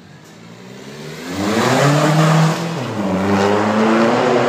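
Renault Mégane III Coupé dCi turbodiesel, ECU-tuned, accelerating hard through its exhaust. The engine note climbs, drops briefly about two and a half seconds in at a gear change, then climbs again.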